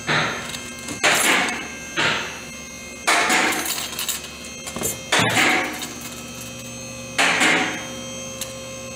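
Sharp metal clanks, each with a short ringing tail, about six at uneven gaps of one to two seconds, as tools and steel parts of a 4T40E automatic transmission are knocked apart by hand.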